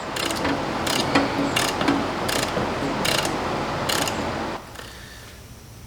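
Hand ratchet wrench being worked on a bolt, a short run of clicks about every second, stopping about four and a half seconds in.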